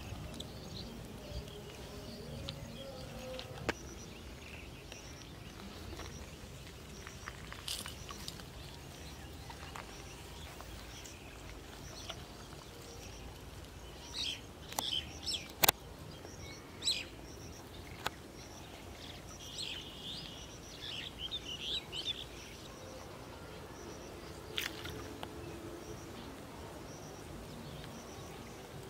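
Small birds chirping now and then over a steady low outdoor background noise. A few sharp clicks are heard, the loudest about halfway through.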